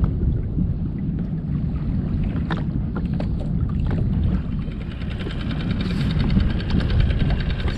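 Wind buffeting the microphone over open water, with a few light clicks in the first half. About halfway through, a small motor's fast, even running comes in under the wind.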